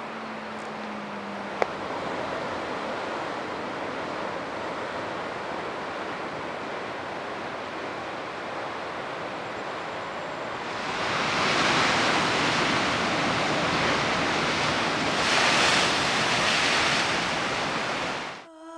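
Sea surf washing against a rocky shore, a steady rushing hiss that grows louder about ten seconds in and drops away just before the end.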